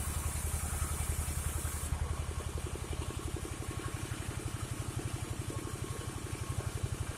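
Engine of a portable sawmill (gergaji slendang) running with a steady rapid beat. A high hiss stops about two seconds in, and the engine runs on alone.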